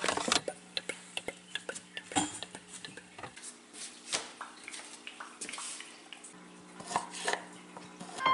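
Scattered knocks and clinks of dishes and food containers being handled, then a few strokes of a knife cutting sausage on a wooden board near the end.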